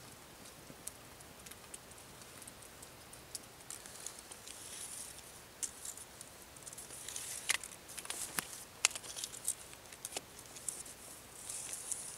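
Light rustling and crackling of dry leaf litter and twigs as a person moves and kneels on the forest floor, with scattered sharp clicks that come more often in the second half.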